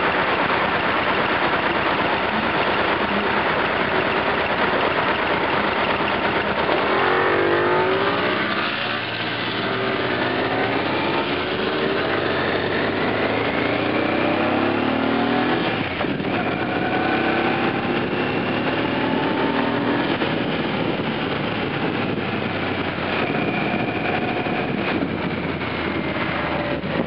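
Yamaha T-Max maxi-scooter's parallel-twin engine running under way through traffic, its note rising and falling as it accelerates and eases off, under steady wind rush on a bike-mounted camera's microphone.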